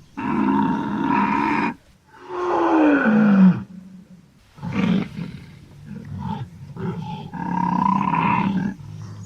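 Wild boar calling: a run of loud drawn-out calls, each a second or so long, one of them sliding down in pitch at its end, with shorter, quieter calls in between.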